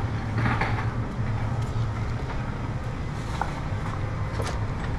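Steady low hum of idling vehicle engines at a truck-stop fuel island, with faint footsteps on a concrete walkway.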